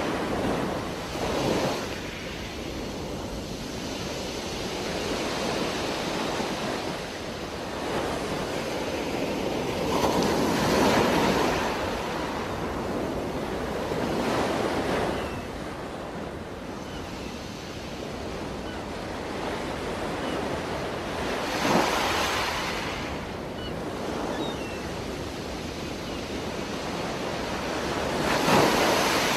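Underwater rushing water noise picked up by a diving camera, a steady hiss that swells louder every few seconds.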